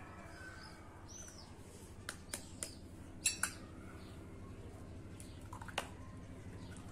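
A few sharp taps and clicks as an egg is taken from a dish and its shell cracked open by hand, the loudest pair about three seconds in. Birds chirp in the background.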